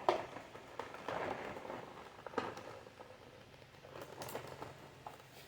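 Rustling and scattered light clicks of plastic toy packaging being handled while twist ties are worked loose.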